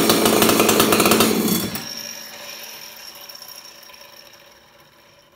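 Husqvarna 266 XP two-stroke chainsaw engine, fitted with a home-built expansion-chamber pipe in place of its muffler, running at high revs with no bar on it; it cuts out about a second and a half in, leaving a fading hum.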